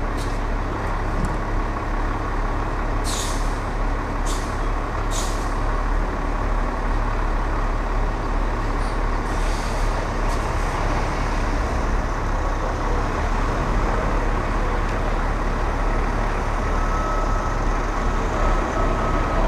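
Heavy truck's engine idling steadily while stopped, with short hisses of air from its brake system: three quick ones about three to five seconds in and a longer one near ten seconds.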